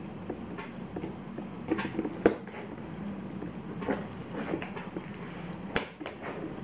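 Scissors snipping at the sealed edge of a cardboard microphone box, a scattered series of short sharp snips and clicks, with the loudest about two seconds in and near six seconds in.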